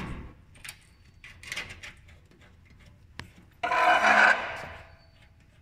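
Scraping and rubbing as a threaded metal cable connector is pushed onto a panel socket and screwed on, with a sharp click about three seconds in, then a loud rasping rub lasting about a second.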